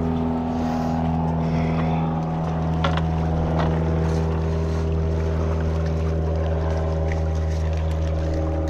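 Steady engine drone of a motor vessel running near the breakwater: a constant low hum with several even tones that doesn't change pitch.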